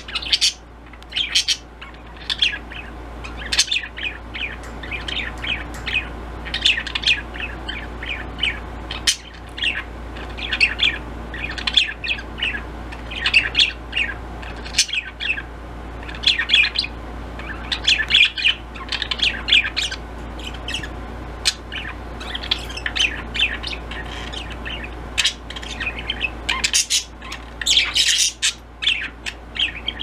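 Budgerigars chirping and chattering in a steady stream of short, quick chirps, with a louder cluster near the end.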